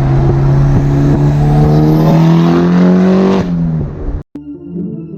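Mitsubishi Lancer Evolution X's turbocharged 4B11 four-cylinder, fitted with an open-dump downpipe, accelerating with a slowly rising pitch for about three seconds, then falling away. The engine sound cuts off abruptly about four seconds in, and soft background music starts.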